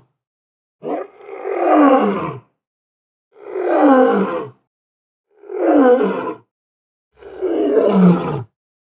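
Lion roaring: four separate roars, each about a second or a second and a half long and dropping in pitch as it ends, with silent gaps between them. The first roar has a short catch just before it.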